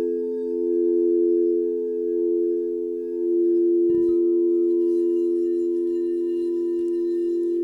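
Crystal singing bowls ringing in steady, overlapping low tones that gently swell and ebb. About four seconds in, a soft strike brings in a new, higher tone above them.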